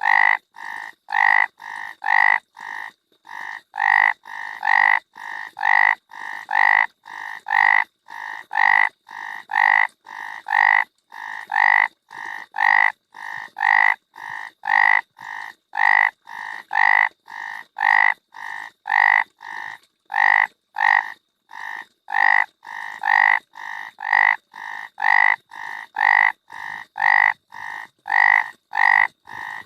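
A frog croaking over and over in short, evenly spaced calls, about two a second, some louder and some softer.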